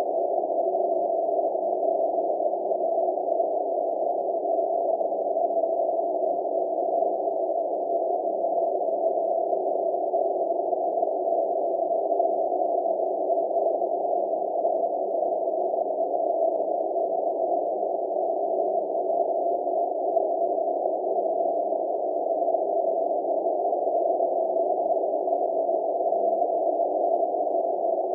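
Steady, unchanging drone of several low held tones blended together, with nothing above a mid pitch.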